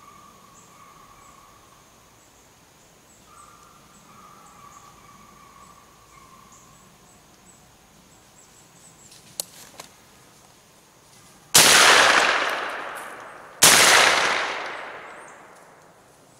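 Two gunshots about two seconds apart, each followed by a long echo that fades over about two seconds.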